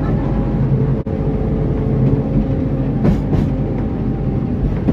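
Narrow-gauge train running, heard from the locomotive cab: a steady low engine hum with rail noise, a brief drop-out about a second in, and a couple of sharp clacks about three seconds in as the wheels run over the track.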